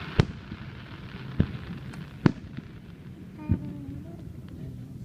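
Fireworks display: aerial shells bursting, with four sharp bangs about a second apart over a low background rumble.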